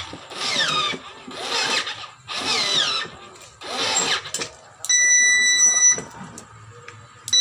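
A children's ride-on electric toy car's sound unit playing electronic sound effects: four short bursts, each a quick falling sweep in pitch like a synthesized engine start, then a steady electronic beep held for about a second. The beep comes again at the very end.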